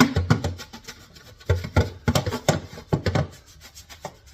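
Brush scraping and knocking inside a return-air duct, a quick run of irregular strokes that break dirt loose while the system fan draws it in; the strokes thin out near the end.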